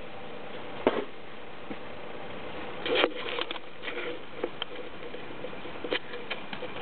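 BMW E36 318is's M44B19 four-cylinder engine running at cold-start idle, with scattered sharp metallic clicks over the steady hum: one about a second in, a cluster around three seconds, more near the end. This is the strange metal sound on cold start that the owner cannot identify.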